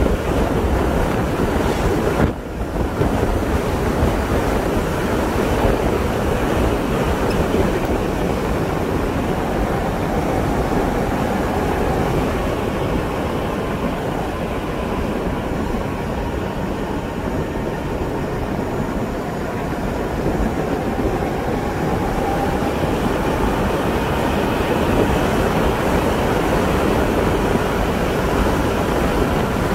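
Steady wind rush over the microphone with road and tyre noise from a moving vehicle, and a faint whine that rises and falls in pitch now and then.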